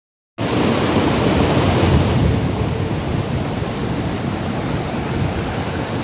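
Waterfall cascading over rocks: a loud, steady rush of falling water with a heavy low rumble, starting abruptly about half a second in.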